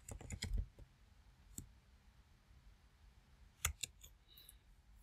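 Computer keyboard keystrokes: a quick run of clicks in the first second, one lone click, then a few more clicks near the end.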